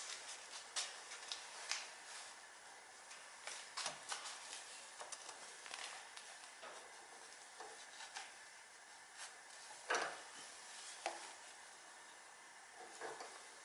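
Faint, irregular clicks and clinks of hand tools and small metal parts being handled during work on the engine's valve cover gasket, over a steady hiss, with a louder knock about ten seconds in.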